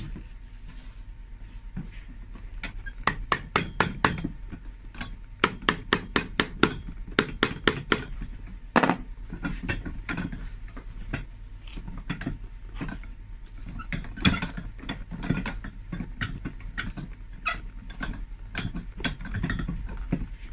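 Flat-blade screwdriver levering the top piece off a worn leather shoe heel: runs of quick, sharp clicks and taps, about five a second, from about three to eight seconds in, then a louder knock and scattered smaller clicks as the blade is worked in.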